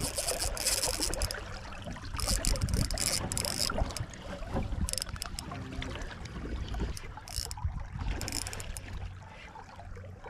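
Wind buffeting the microphone over water slapping against the hull of a small fishing boat, rising and falling in gusts.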